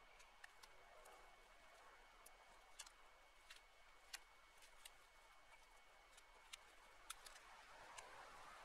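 Near silence with faint, scattered snaps and crackles of dry brush and twigs being pulled from a brush pile.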